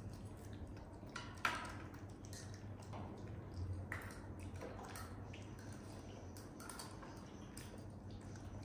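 Small monkey eating rice with pumpkin: soft wet smacking and scattered light clicks and taps, with one sharper click about a second and a half in.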